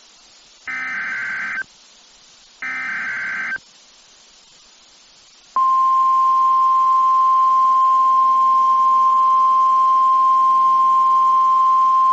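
Emergency Alert System header on NOAA Weather Radio: two buzzing SAME digital data bursts, each about a second long, the last two of three. After a pause, the steady single-pitch NOAA Weather Radio warning alarm tone starts about five and a half seconds in, signalling that an urgent warning message follows, here an evacuation order for a wildfire.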